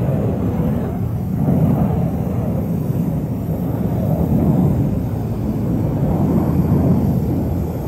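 Jet engine noise from a nine-ship formation of BAE Hawk jets of the Red Arrows flying by. It is a low, steady rumble that swells and eases a few times.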